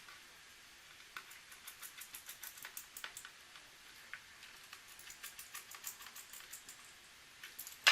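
Light, quick clicks and ticks, several a second, from small laptop parts and tools being handled, with one sharp, much louder click at the very end.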